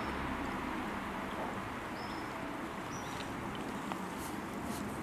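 Steady outdoor background noise with a few short, high chirps about a second apart and some faint clicks near the end.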